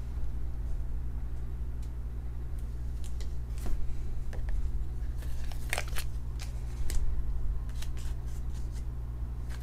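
Trading cards and a clear plastic sleeve being handled, with scattered light clicks and crinkles as a card is slipped into the sleeve, over a steady low hum.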